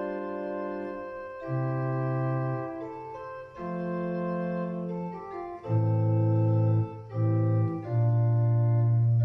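Organ playing slow, held chords that change every second or so, with loud deep bass notes in the second half.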